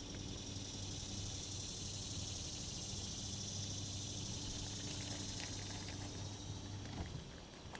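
The jon boat's motor hums steadily and cuts off about seven seconds in, over a steady hiss.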